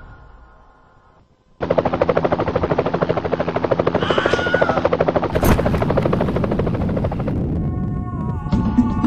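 Helicopter rotor chop that starts suddenly about a second and a half in, as fast, even beating that runs on. There is one sharp crack about five and a half seconds in.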